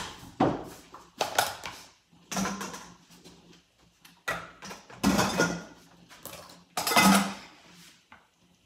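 Kitchen dishes and cutlery clattering and clinking: a string of separate knocks and clinks over several seconds, the loudest near the end.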